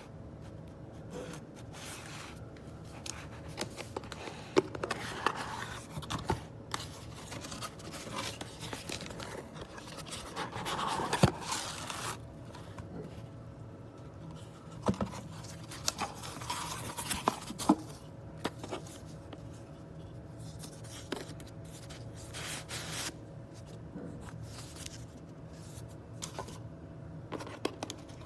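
Small parts being handled at close range: irregular scrapes, rubbing and light clicks over a steady low hum.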